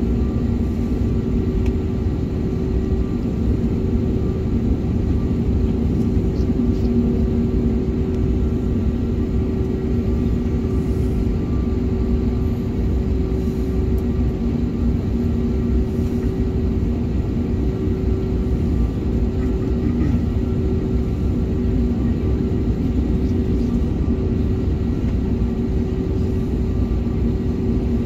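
Airbus A321neo cabin sound while taxiing: the engines run at idle as a steady low rumble, with a constant low hum throughout.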